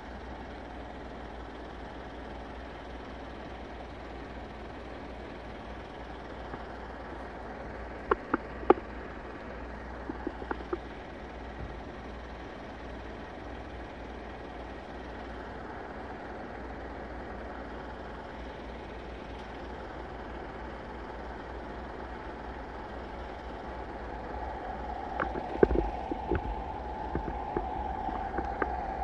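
Steady low rumble of wind on the microphone with a few sharp clicks. Near the end a train's engine drone comes up, growing louder as it approaches the crossing.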